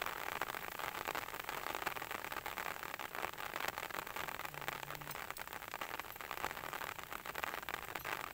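Rain falling steadily: an even hiss full of small pattering drops.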